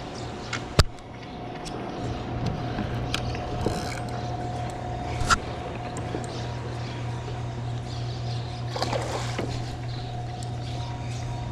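Steady rush of river water running over a spillway, with a constant low hum under it. Two sharp knocks from gear being handled on a plastic kayak stand out, the louder one about a second in and another around five seconds in.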